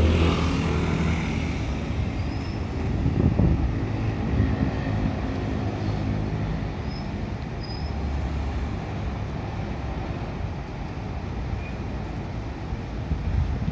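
Heavy diesel engine running steadily at low revs, a deep drone with a brief louder swell about three seconds in, over traffic noise.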